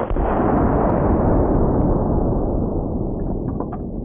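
A Henry lever-action .45-70 rifle shot bursting a bowling ball, heard as a deep, drawn-out boom over slow-motion footage. It starts suddenly and fades slowly, with a few faint ticks near the end.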